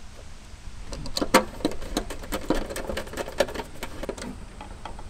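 Irregular clicks and light knocks of a new AC contactor and its wiring being handled and fitted into a condenser unit's sheet-metal control panel. The clicks start about a second in and come quickly and unevenly.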